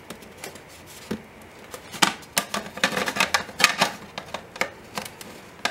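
Plastic toy volcano pieces pressed together by hand: an irregular run of sharp plastic clicks and knocks, most of them from about two seconds in.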